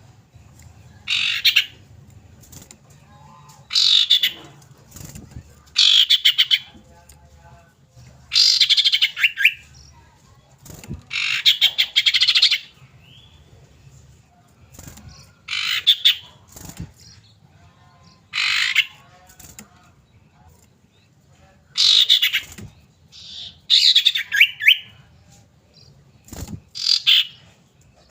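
Common iora calling: short, rapid chattering phrases repeated every two to three seconds over a faint low hum. This is a lure call used to set captive ioras singing.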